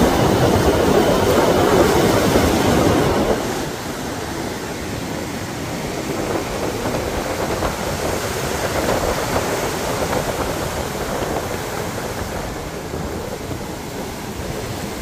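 Heavy, rough surf breaking on a beach: a steady rush of noise that drops in level about three seconds in.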